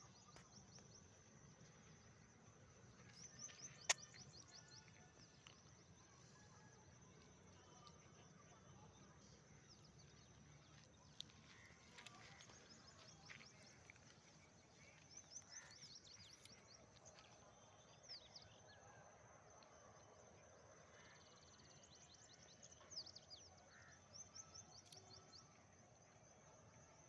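Quiet outdoor ambience with a steady high-pitched hum. Small birds call several times in runs of quick, falling chirps, and there is one sharp click about four seconds in.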